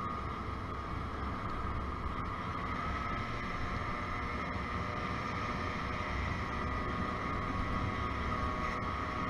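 Engine of a partly derestricted Motobi BS1 50 cc scooter running at steady cruising revs, a constant high drone, with a low rumble of wind and road noise beneath it.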